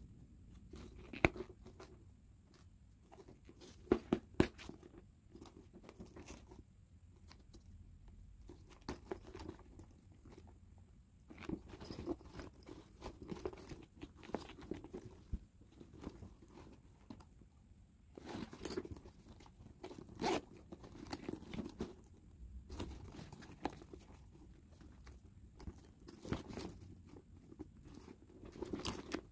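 Handling noise of a leather satchel being squeezed, turned and opened by hand: irregular rustling and crinkling of the leather and lining, with scattered sharp clicks, the loudest about a second in, around four seconds in and near the middle.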